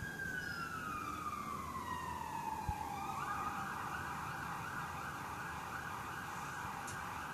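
Police siren wailing, its pitch sliding slowly down, then switching about three seconds in to a fast up-and-down yelp.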